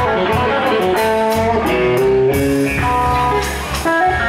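Live blues band playing a slow blues: a Stratocaster-style electric guitar plays a single-note lead line of held notes over bass and drums with cymbal strikes.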